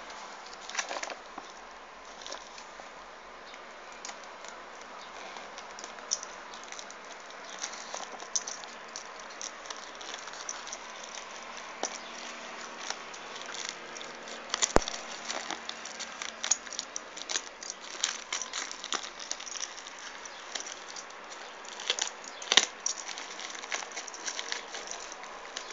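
Packaging and a small boxed item being handled while unboxing: irregular crackling, rustling and clicking, with one sharp click about halfway through and a few louder knocks near the end.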